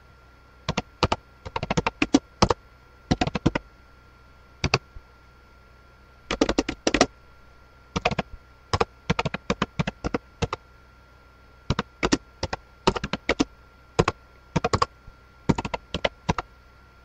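Typing on keys: irregular runs of quick, sharp key clicks broken by short pauses, over a faint steady hum.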